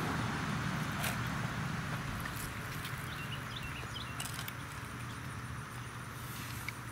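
Quiet outdoor background with a steady low hum, two soft knocks of a knife against a wooden cutting board while a paddlefish is being cut, about a second in and about four seconds in, and a few faint high chirps.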